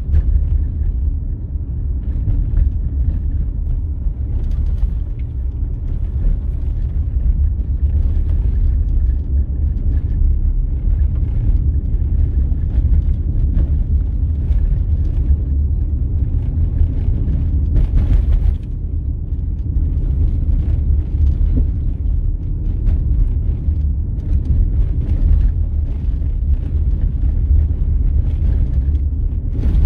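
Vehicle cabin noise while driving a bumpy gravel road: a steady low rumble of tyres and running gear, with scattered short knocks from the rough surface, one stronger knock about two-thirds of the way through.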